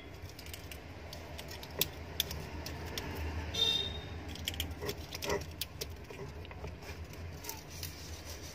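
Enamelled copper winding wire rustling and jingling as a hand pushes a coil into the slots of a motor stator, with scattered sharp clicks. A steady low hum runs underneath.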